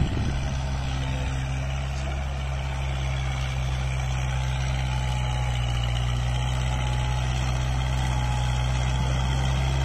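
Kubota MU4501 tractor's four-cylinder diesel engine running steadily under load while pulling a plough through the soil.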